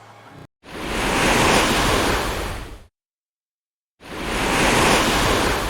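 Rushing, surf-like noise in two swells of about two seconds each. Each fades in and out, with a second of dead silence between them.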